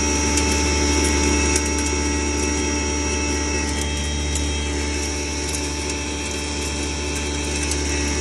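Electric stoneless maize grinder running steadily: a constant low motor hum with a mechanical rattle over it.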